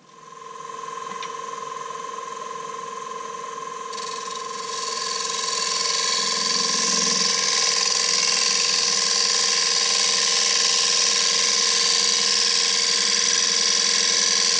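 Nova Saturn woodturning lathe starting up and running with a steady electric whine. From about four seconds in, a gouge cuts into the spinning beech bowl blank with a continuous hiss as shavings fly off.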